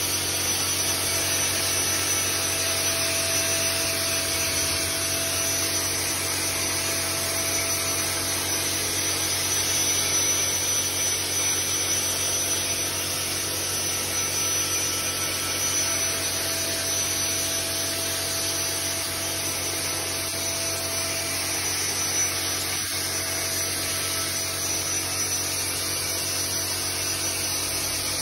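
Steady hiss and machine drone of compressed-air spray guns applying water-based chrome (hydrochrome) solution by spraying.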